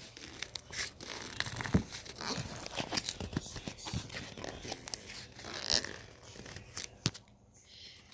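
Rustling, scrapes and scattered clicks of a phone being handled and fumbled close to its microphone, irregular throughout, with a brief quieter stretch near the end.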